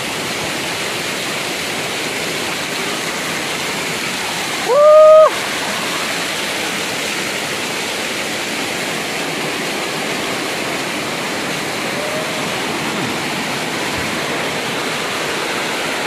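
Waterfall water rushing and splashing steadily down over rocks close by. About five seconds in, a person's voice gives one short, loud exclamation that rises and then holds.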